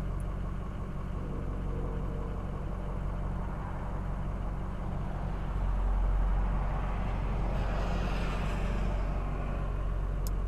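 A vehicle engine idling, heard from inside the truck cab as a steady low hum. A louder rushing sound rises and fades between about seven and nine seconds in.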